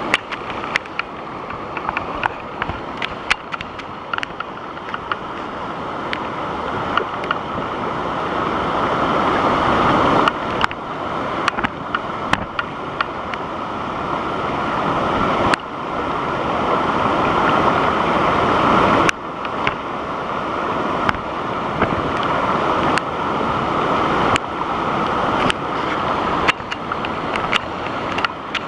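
Waterfall: a steady rush of falling water that swells and drops back several times, with many short sharp clicks over it.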